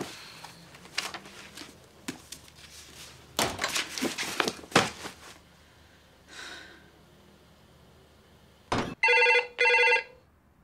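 Soft rustles and knocks of handling, then near the end a telephone rings: two short bursts close together, the British double ring.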